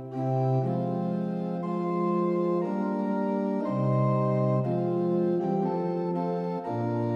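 Organ music: slow, sustained chords that move to a new chord about once a second.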